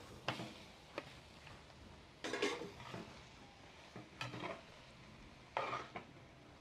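A spoon stirring and scraping in a cazuela as drained nopales go into the hot oil and sautéed onion, in several short strokes over a faint sizzle.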